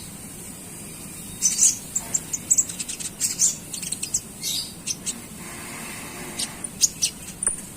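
Konin songbird chirping in quick, irregular runs of short, high, sharp notes. This is the fast chattering (ngeriwik) call used as a trigger recording to teach konin birds to sing.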